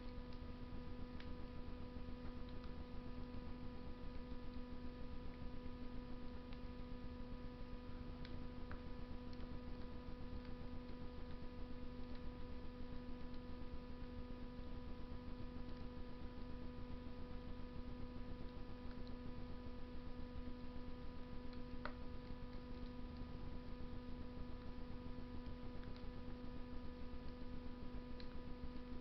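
Wood fire burning in a Russian stove, with sparse faint crackles and pops over a steady hum.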